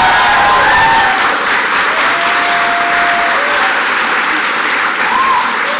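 Audience applauding loudly, with a few cheering voices and a held whoop about two seconds in.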